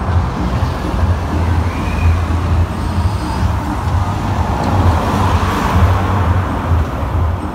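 Tractor diesel engine idling with a steady low throb.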